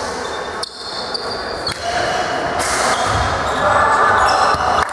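Volleyball rally in a sports hall: a few sharp hits of the ball, short high squeaks from the court, and a background of crowd voices in the echoing hall.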